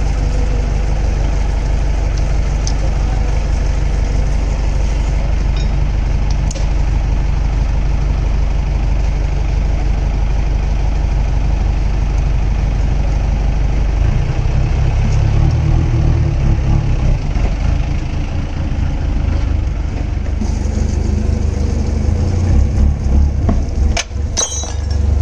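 Steady low rumble of an engine running nearby, which turns more uneven and pulsing about halfway through. A few sharp metal clicks, most of them near the end, come from a spanner levering down the valve springs on a diesel engine cylinder head.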